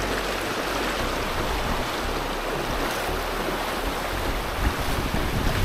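Fast, shallow mountain stream rushing over rocks: a steady rush of water, with some wind buffeting the microphone.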